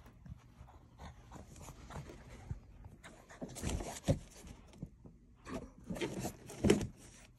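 French bulldog puppy rolling and wriggling on its back on a shag carpet: scratchy rustling of its body and paws against the carpet in two spells, with a couple of dull bumps, the loudest near the end.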